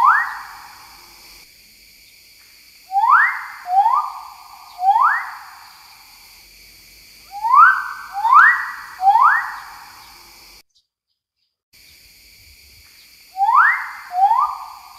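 Magnificent riflebird calling: a loud series of whistles in groups of three, each note swooping sharply upward and then held briefly, with the groups a few seconds apart. A steady high hiss of forest background runs beneath, and the sound cuts out completely for about a second past the middle.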